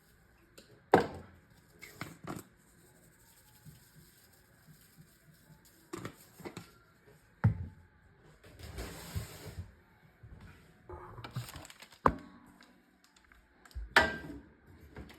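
Kitchen prep handling sounds: scattered knocks and clunks as things are picked up and set down, with two stretches of soft hiss, the longer one about nine seconds in.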